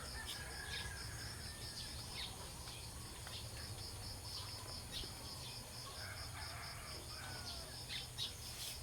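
Faint outdoor morning ambience: a steady, rapidly pulsing insect chirping, with short bird chirps now and then, over a low hum.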